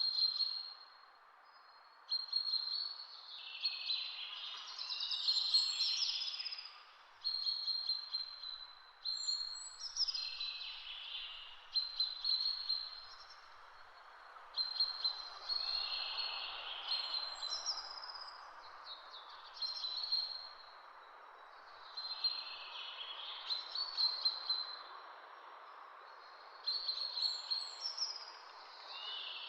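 A songbird singing repeated phrases, one every two to three seconds, each opening on a high steady note before a quick tumbling flourish, over a steady background hiss of outdoor ambience.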